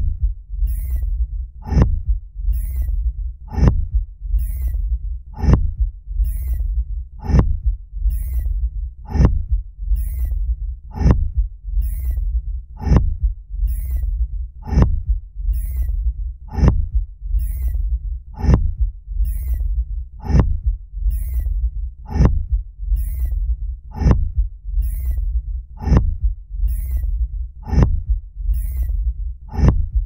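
Thumper sound effect, the sandworm-calling device from Dune: a steady mechanical pounding, about one thud a second, with strong and weaker strokes alternating, over a continuous low rumble.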